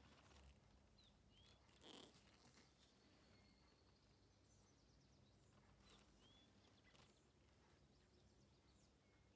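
Near silence: faint room tone with two brief pairs of faint bird chirps, one about a second in and one about six seconds in, and a faint tap near two seconds.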